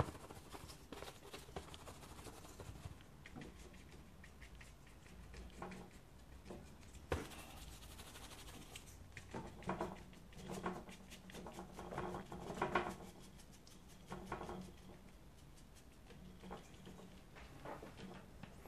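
Faint patter of a flat brush dabbing and scrubbing paint onto watercolour paper, in quick, irregular little taps.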